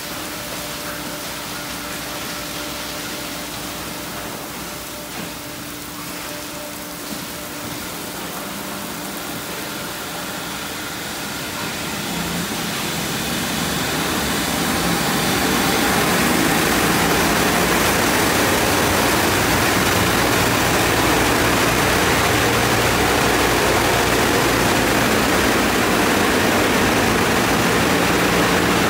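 Automatic car wash tunnel: water spray hissing over a car against a steady machine hum, then about halfway through the sound swells over a few seconds into the much louder, steady rush of the tunnel's air dryer blowers.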